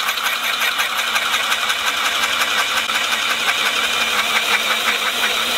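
Milwaukee M18 Fuel cordless hammer drill on low speed, driving a 2-inch bit down into a green ash log: the motor runs under heavy load, steady and loud, with a fast, even chatter of the bit cutting the wood.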